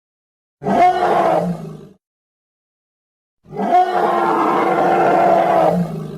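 Two creature roars from a sound-effect track: a short one of about a second, then after a gap of silence a longer one of nearly three seconds that fades out at the end.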